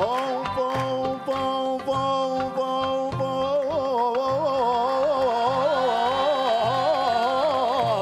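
A man's voice holding one long sung note of a Lebanese folk song refrain, steady at first and then wavering with vibrato from about halfway, over drum strikes in the first half.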